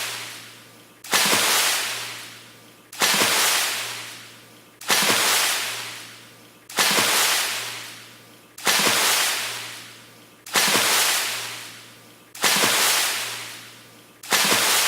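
A water splash repeated evenly about every two seconds, eight times. Each one hits sharply and fades out over about a second and a half.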